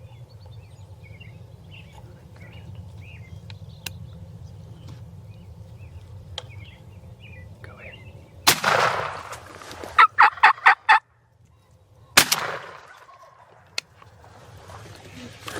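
Two shotgun blasts about four seconds apart. Between them, a turkey gobbles: a quick run of five loud, clipped notes. Faint birdsong comes before the first shot.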